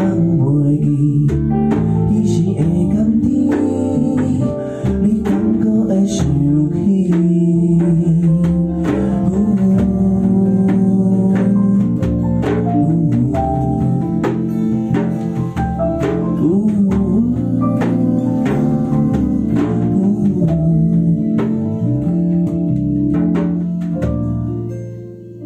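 Live band playing a song: strummed acoustic guitar, electric bass and electric guitar with light percussion, and a man singing at the microphone. The music falls in level near the end.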